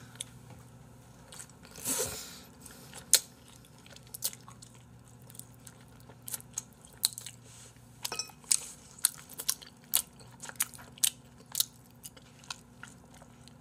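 A person chewing and smacking food close to the microphone, with many short wet clicks and crunches. They come thicker in the second half.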